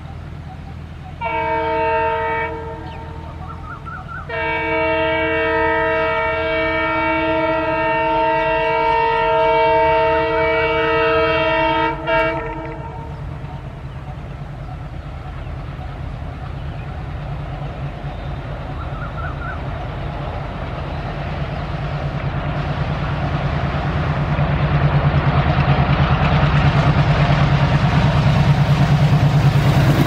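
WDG-3A ALCO diesel locomotive sounding a sharp horn twice, a short honk and then a long one of about eight seconds, as it approaches. Its diesel engine chugs underneath throughout, growing steadily louder as it draws close and passes.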